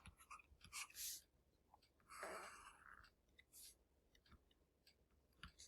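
Near silence, with a few faint brief scratches and clicks.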